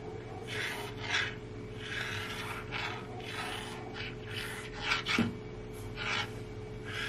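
Marker pen drawing straight lines on a white-painted board: about a dozen short, scratchy strokes, one after another.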